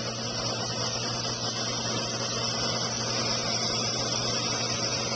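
A motor-driven blower running steadily: an even rush of air with a constant low motor hum.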